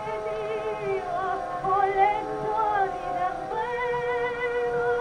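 Soprano singing an operatic aria with orchestral accompaniment, on an early single-sided 78 rpm record played back on an HMV 130 cabinet gramophone with a bamboo needle. Long held notes with vibrato, a new one starting a little past halfway.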